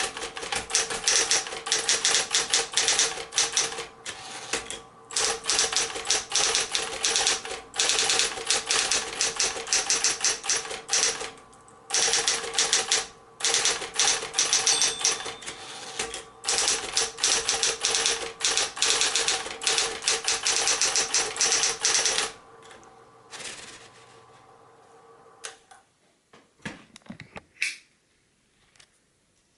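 Mid-1960s Smith-Corona Coronet 10 electric typewriter typing in fast runs of keystrokes with short pauses, its motor humming steadily underneath. About three quarters of the way through the typing stops. The hum runs on a few seconds longer, then cuts off, and a few separate clicks follow.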